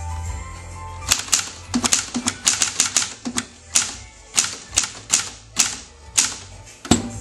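Hermes Ambassador manual typewriter being typed on: sharp clacks of the typebars striking the paper as the carriage steps along. The strokes start about a second in as a quick irregular run, then slow to even keystrokes about two a second, with one loud strike near the end.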